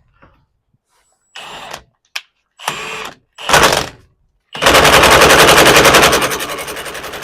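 Impact wrench running down the steering-wheel retaining nut on a Ford Club Wagon's steering column: three short bursts, then about three seconds of rapid hammering that drops in loudness partway through as the nut tightens.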